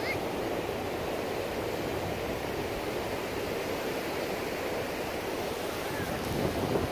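Ocean surf washing onto a sandy beach: a steady, unbroken rush of breaking waves.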